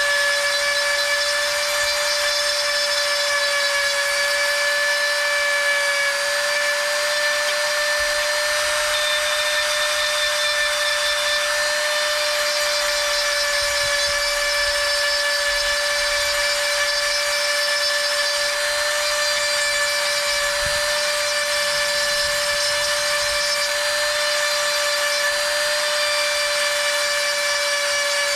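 Handheld rotary tool running at a steady high-pitched whine, its grinding stone grinding down the ridges inside a PVC pipe fitting to make the bore straight.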